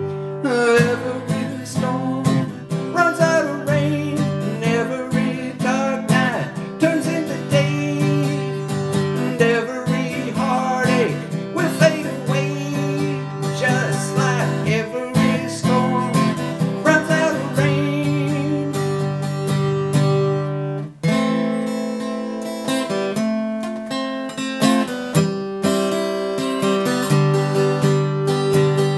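Taylor 224ce-K DLX acoustic guitar, strummed and picked through an instrumental break in a slow country ballad.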